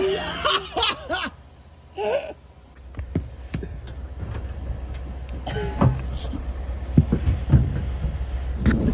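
A vehicle engine running with a steady low rumble, with a few knocks and clicks over it and brief bits of voices in the first couple of seconds.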